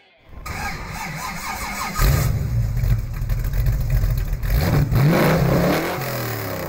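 Classic late-1960s Ford Mustang's engine running, getting louder and deeper about two seconds in, with the revs rising and falling near the end.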